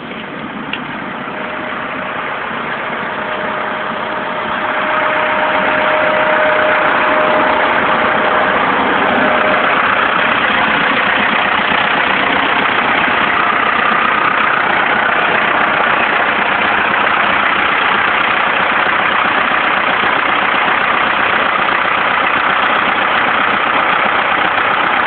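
Ford 6610 tractor's four-cylinder diesel engine idling, growing louder over the first few seconds and then holding steady.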